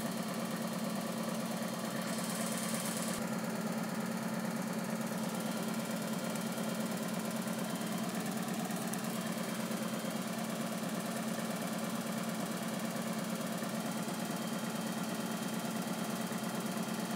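Steady low mechanical hum, even in level throughout, with a brief high hiss about two seconds in.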